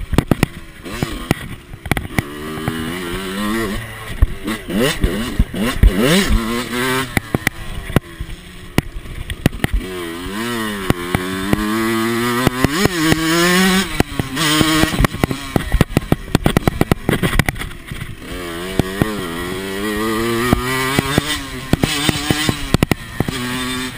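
125 cc two-stroke motocross bike engine under riding load, revving up hard and dropping back over and over as it is worked through the gears and eased off for turns, with frequent short knocks.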